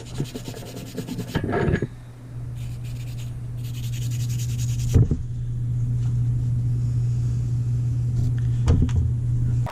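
Steady electric motor hum under rubbing and scraping, an abrasive power tool working the metal of a cast-iron arbor press; it cuts off suddenly at the end.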